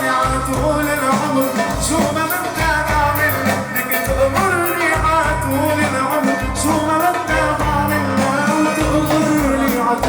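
A man singing over an upbeat band backing with a steady beat, in a love song in Arabic.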